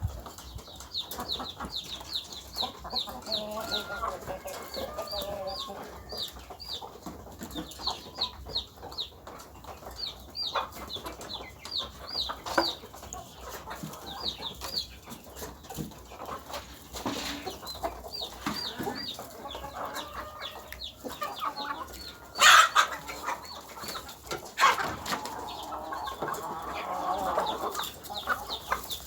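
Chickens calling: a steady run of short, high peeping notes several times a second, with lower clucking now and then. Scattered sharp knocks and clicks are mixed in, and the loudest is a brief burst about 22 seconds in.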